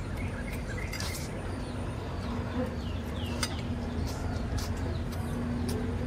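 A person eating stir-fried noodles with a fork: slurping and chewing, with light clinks of the fork on the plate. Birds chirp briefly a few times, over a steady low hum.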